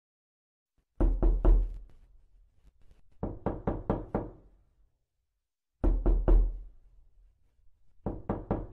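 Rapid knocking in four bursts of about four to six quick knocks each, with silence between the bursts.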